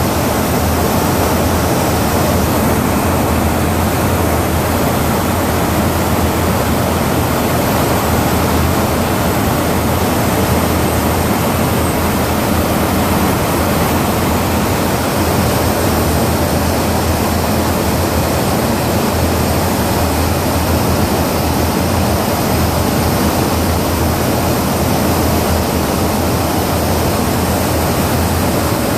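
Loud, steady rushing noise of an aircraft in flight, heard from inside a refuelling tanker's boom operator station: airflow and engine noise without any change.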